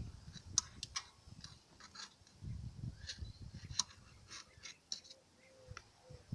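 Small irregular clicks, ticks and rubbing from a hand working grease into a metal shaft joint and handling the joint. Low handling rumbles come with it.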